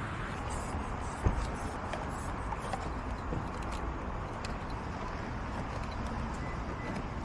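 Light scattered clicks and taps of a locksmith's lockout tools working a car door, with one sharper knock about a second in, over steady outdoor background noise.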